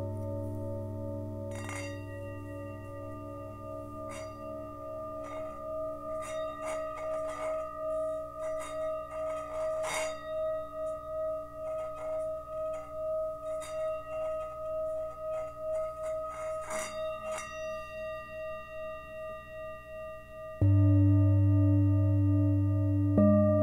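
Himalayan singing bowls: a small bowl rimmed with a wooden stick gives a steady ringing tone that swells and fades in a slow regular wobble, with faint scratchy clicks from the stick on the rim. About 21 s in, a large bowl is struck with a felt mallet and a loud, deep hum comes in, and another bowl is struck just before the end.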